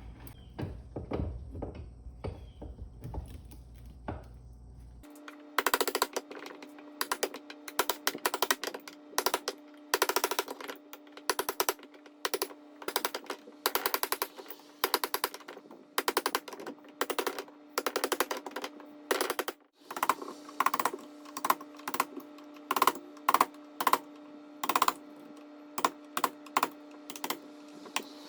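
Rapid, irregular sharp clicks and knocks from hand work on a scrap electric motor's parts. A steady hum runs under them from about five seconds in.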